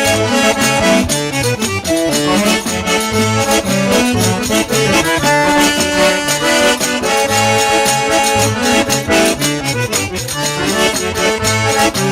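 Instrumental break of a southern Brazilian gaúcho song: accordion leading the melody over a steady bass beat, with guitar, and no singing.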